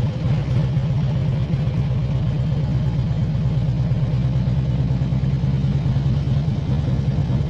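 Harley-Davidson V-twin motorcycle engine running steadily while the bike rides along, heard from the rider's seat.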